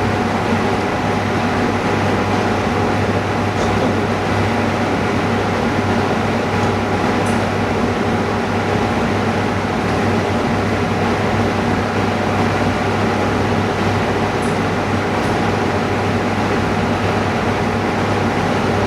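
Steady mechanical hum and whir of running machinery, with a constant low hum, a few faint clicks, and no change from start to end.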